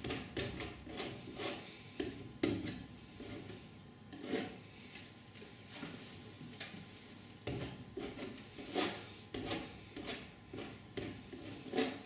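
Flexible palette knife rubbing and scraping oil paint across a stretched cotton canvas in short irregular strokes, with scrapes of the knife on the palette midway.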